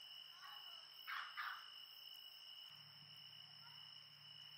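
Steady high-pitched trilling of night insects such as crickets. Two short, louder sounds come close together a little over a second in, with a few faint falling chirps around them.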